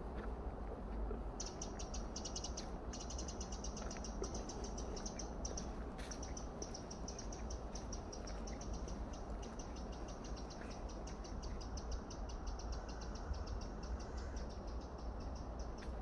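A high, fast and very even pulsing trill that starts about a second and a half in and keeps going with only short breaks, over a steady low rumble.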